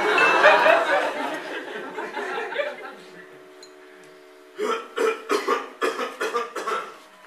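Laughter: a spell of audience laughter fading over the first three seconds, then a run of short, evenly spaced chuckles for a couple of seconds near the end.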